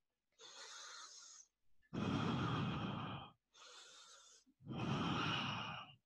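Slow, deep yoga breathing, twice: a faint in-breath, then a louder, longer out-breath of about a second and a half.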